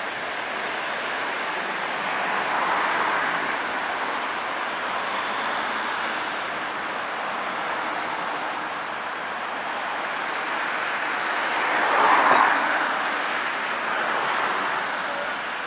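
City street traffic: cars driving past in a steady wash of road noise. One passes loudest about twelve seconds in, and a smaller swell comes about three seconds in.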